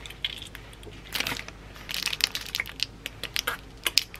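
Plastic squeeze bottles of ketchup and then mayonnaise being squeezed, the sauce squirting out in irregular crackly spurts and clicks.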